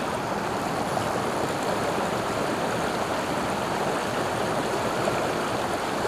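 Swift river water rushing and splashing over rocks in a riffle, a steady rush.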